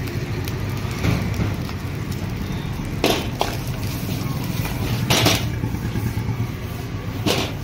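Metal spatula scraping and striking a wok while stir-frying rice, a sharp scrape roughly every two seconds, over a steady low rumble.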